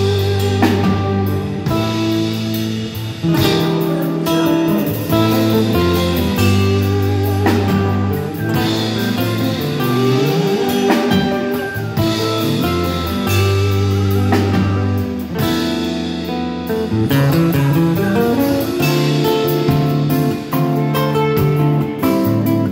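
Nylon-string electro-acoustic guitar playing a melodic line over held low bass notes and light percussion, likely a backing track.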